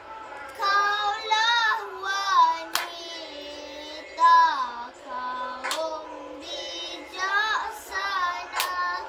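A young boy singing a dikir barat verse, long held notes bent in ornamented wavers, phrase after phrase with short breaks. Three sharp hand claps fall about three seconds apart.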